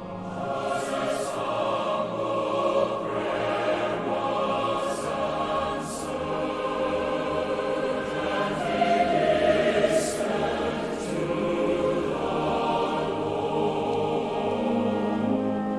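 Choral music: a choir holding long, sustained chords, growing louder to a peak about two-thirds of the way through.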